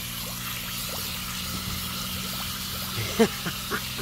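Garden hose jetting water into a shallow muddy puddle: a steady splashing trickle. A few short, sharp sounds about three seconds in, the first the loudest.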